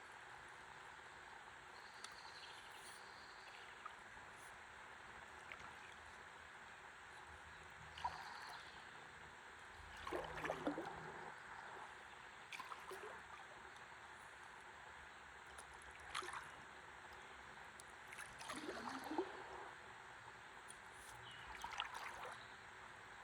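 Faint splashes and gurgles of a paddle dipping into calm river water beside a stand-up paddleboard, a few strokes spaced several seconds apart, over a steady soft water hiss.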